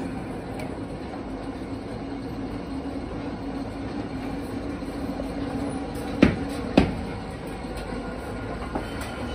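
Brake drum workshop machinery running with a steady hum. Two sharp knocks come about half a second apart past the middle, and a lighter one follows near the end.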